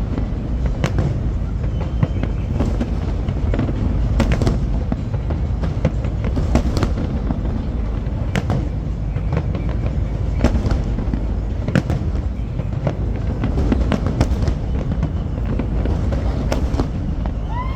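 Large fireworks display: shells bursting in a rapid, irregular series of sharp bangs over a constant low rumble.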